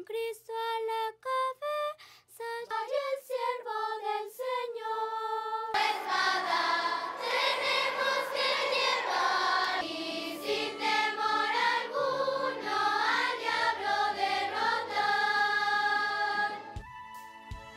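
A child's voice sings a melody solo, then a choir of children takes up the song with instrumental backing. About a second before the end the singing stops and instrumental music with low beats carries on.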